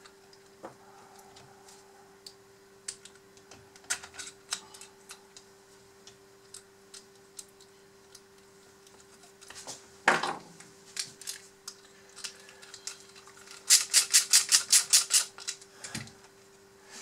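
Small metal parts of an all-metal model excavator arm clicking and tapping as they are handled and fitted together by hand. There is a sharper knock about ten seconds in, and a quick rattling run of about nine clicks a second a little before the end, over a faint steady hum.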